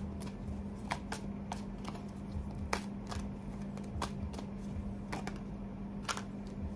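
Tarot deck being shuffled by hand: irregular sharp card clicks and snaps, over a steady low hum.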